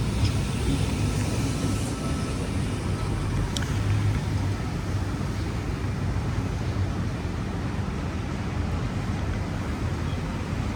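Steady rumble of road traffic, with one short click about three and a half seconds in.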